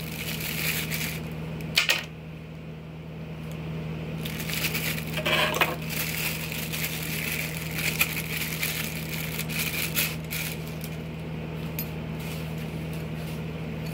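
Clear plastic bag crinkling and rustling as a tweeter is unwrapped from it, with a few sharper clicks along the way. A steady low hum runs underneath.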